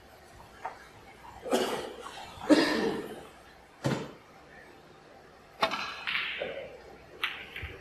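Snooker play: a series of separate sharp clicks and short knocks of cue and balls, the loudest about two and a half seconds in.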